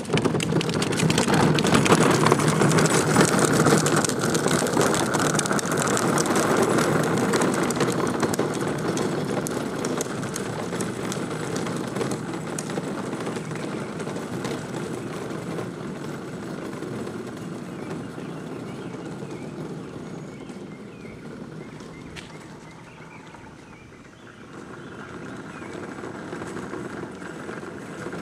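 Child's wagon being pulled along, its wheels rolling over the ground in a continuous gritty rumble that is loudest at first, eases off and dips briefly near the end before picking up again.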